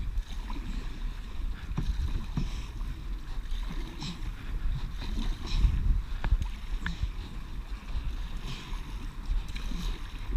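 Canoe being paddled through river rapids: rushing water and paddle splashes with scattered knocks of the paddles and hull, over a constant low rumble of wind on the microphone.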